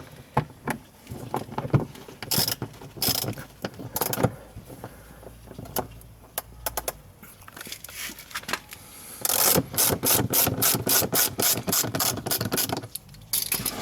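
Hand ratchet clicking: scattered clicks and knocks, then about 9 s in a quick even run of ratchet clicks, about five a second, for some three seconds.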